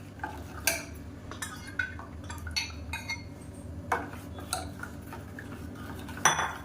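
Spoon stirring a thin milk-and-jaggery mixture in a pan on the stove, clinking and scraping against the pan at irregular intervals, about once a second.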